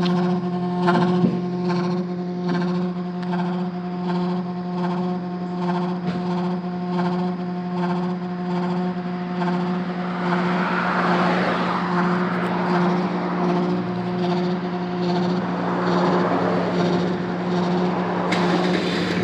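Unidentified noise from the fuel tank area of a 2014 Ford Fusion: a steady low hum with a regular ticking about twice a second, joined about ten seconds in by a wavering rushing hiss. The owner says the car usually stalls after making this noise.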